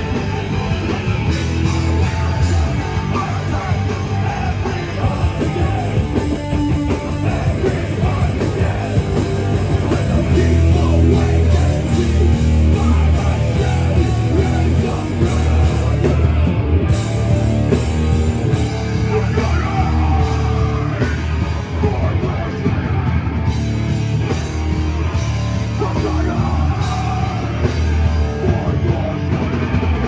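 Hardcore punk band playing live and loud: distorted electric guitars, bass and drums with shouted vocals.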